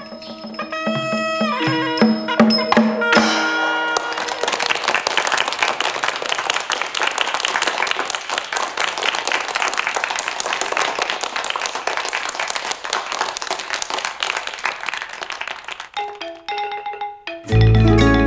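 Traditional Southeast Asian percussion music: a few ringing pitched notes, then from about four seconds in a long run of fast, dense percussion strikes. Near the end a louder, different piece of music with heavy low notes cuts in.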